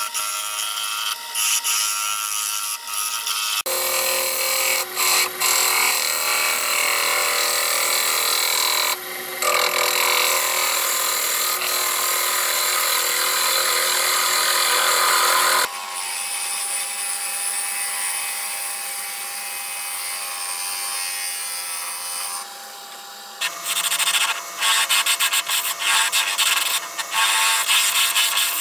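Wood lathe spinning a wooden plate blank while a turning gouge cuts its face: a steady hiss and rasp of shavings peeling off over the lathe motor's steady hum. The cutting sound changes abruptly a few times and dips briefly near the middle and again about three-quarters through.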